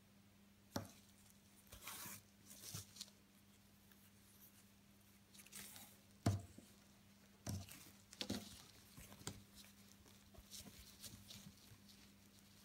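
Needle and silk ribbon being drawn through burlap in an embroidery hoop: scattered soft rustles and light ticks as the cloth is pierced and the ribbon pulled through, over a faint steady low hum.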